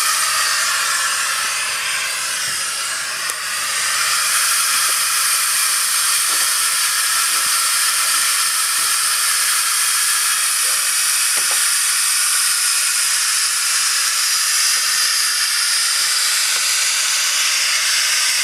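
7¼ inch gauge 0-6-0 live steam locomotive blowing off steam from its safety valve in a steady hiss, which weakens briefly about two seconds in and comes back stronger about four seconds in.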